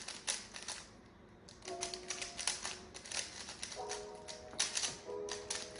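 Plastic twisty puzzle cube being turned rapidly by hand during a speed-solve: a dense run of quick plastic clicks and clacks as the layers snap round, with a brief pause about a second in.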